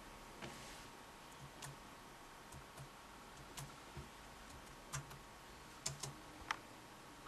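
Laptop keyboard keys pressed one at a time in slow, uneven typing: about a dozen quiet, separate clicks.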